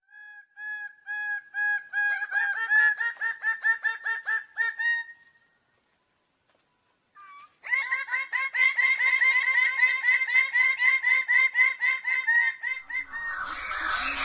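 Bird-of-paradise calling: a series of short, repeated pitched notes that speed up about two seconds in, a pause of about two seconds, then a faster run of rapid notes. Near the end louder, more tangled calls come in.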